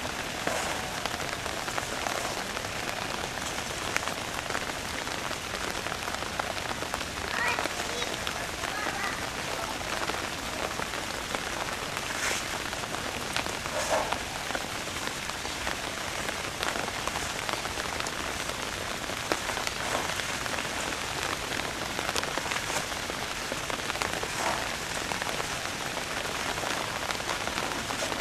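Steady rain falling, an even hiss full of fine drops.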